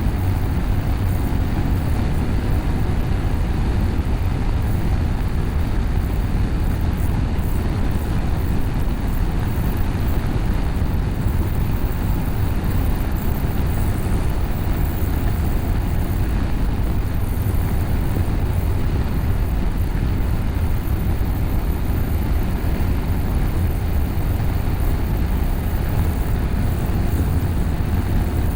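BMW F850GS parallel-twin engine running at a steady pace through an Akrapovic slip-on exhaust with the catalytic converter bypassed. It makes an even, deep drone with no revving or gear changes.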